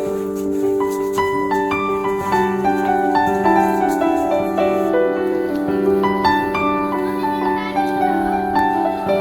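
Background music: a melody of plucked or struck notes over a sustained low tone.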